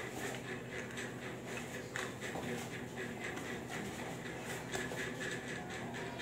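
Faint clicks and rustles of a small cardboard box and its paper being handled, over steady room noise.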